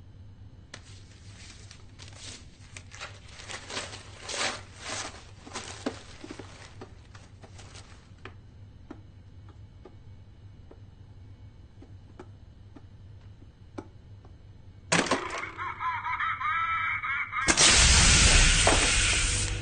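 Tissue and wrapping paper crinkling as a gift box is unwrapped, with a few soft handling clicks. About 15 seconds in a sudden wavering noise comes as the box opens, then near the end a loud hiss of gas spraying out of the box.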